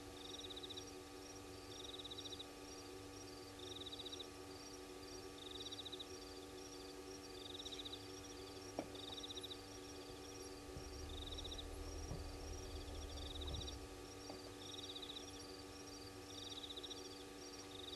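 Night insects calling: a short pulsed chirp repeats about once a second over a fainter, faster ticking chorus, with a steady low hum underneath. A single click comes about halfway through, and a low rumble rises for about three seconds soon after.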